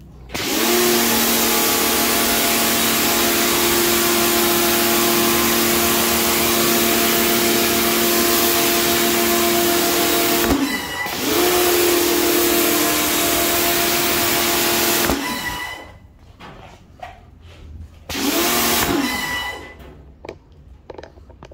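Electric pressure washer running, its motor hum under the loud hiss of the high-pressure water jet. The motor spins up at the start, stops and restarts briefly about ten seconds in, cuts out a few seconds later, then runs again for a short burst of about a second near the end.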